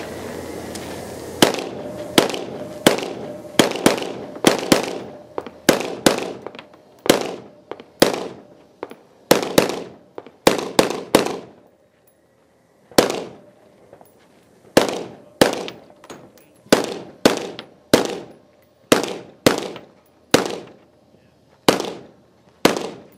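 Rifle fired from the prone position: about thirty single shots at an even, quick pace of one every half second to a second, each a sharp crack with a fading echo, with one pause of about two seconds near the middle.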